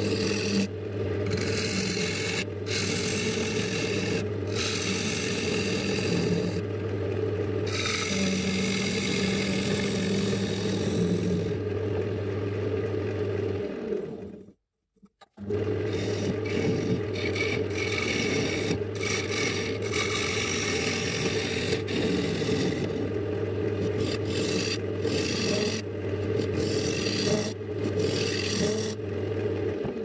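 Wood lathe running with a steady motor hum while a tool or abrasive rubs and scrapes against the spinning paduk blank. The sound breaks off for about a second halfway through, then carries on.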